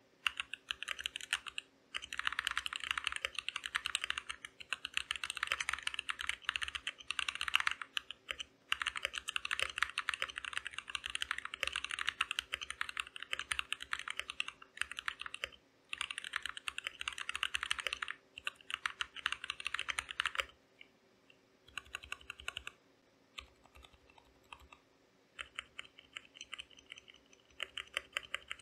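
Typing test on a Keychron K2 V2 mechanical keyboard fitted with Gazzew Boba U4T tactile switches: fast, continuous runs of keystrokes broken by short pauses every two to four seconds, turning sparser and quieter about twenty seconds in.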